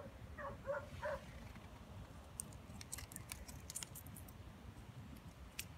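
A dog yips faintly four times in quick succession in the first second. Then comes a run of light, sharp clicks and crackles from a dry tea-seed husk and twigs being handled close to the microphone.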